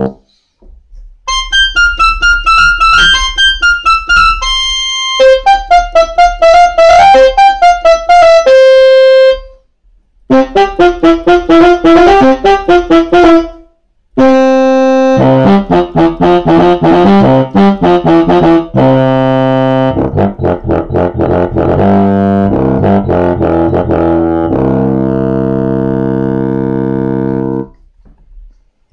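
Kawai FS660 portable electronic keyboard played on its built-in preset voice number 22. Several short melodic phrases come first, with brief breaks about ten and fourteen seconds in, followed by fuller held chords with low bass notes under the melody.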